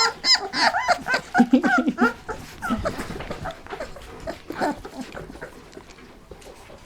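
Bernese Mountain Dog puppies, about three and a half weeks old, whimpering: a quick run of short, high, rising-and-falling whines over the first couple of seconds, then a few fainter whimpers among soft rustling that die away.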